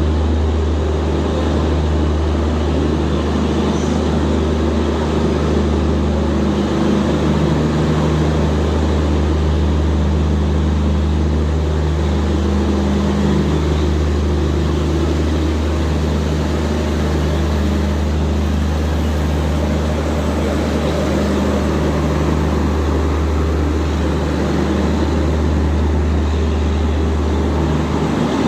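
Diesel generator sets of an Indian Railways LHB end-on-generation power car running, a loud, steady drone with a strong low hum.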